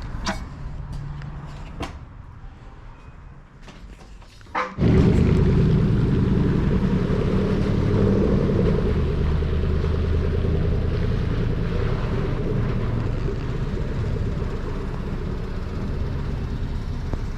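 A few faint clicks, then about five seconds in a vehicle's engine starts being heard as a loud, steady low rumble that runs on evenly.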